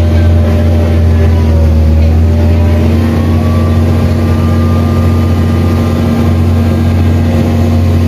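Amphibious tour vehicle's engine running steadily while afloat, a loud, even low drone.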